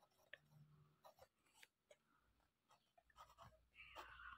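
Faint scratching of a pen nib on lined notebook paper as words are handwritten, with a louder stroke near the end.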